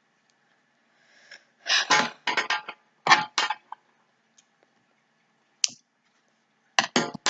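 Sticky tape being pulled off a roll in several short strips: a cluster about two seconds in, two more a second later, and another cluster near the end, with one short sharp tear in between.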